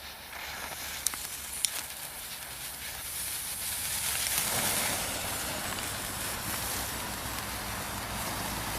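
A small firework burning with a steady fizzing hiss that builds up about three seconds in. It is preceded by two sharp cracks about a second apart.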